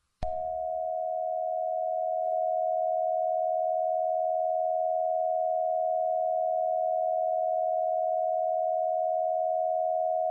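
A steady electronic alert tone of two close pitches, pure and unchanging, starting abruptly just after the start and held throughout.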